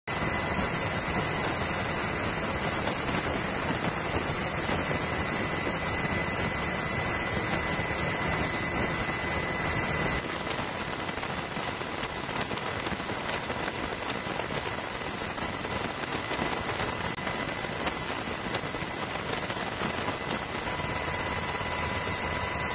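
Steady aircraft engine and wind noise heard from aboard, a constant rush with a faint high whine running through it; the noise shifts a little about ten seconds in.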